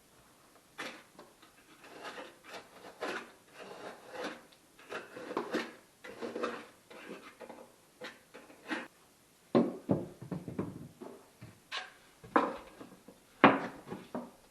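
Irregular rubbing, scraping and handling noises of hands-on work with materials, with a few sharper knocks in the second half.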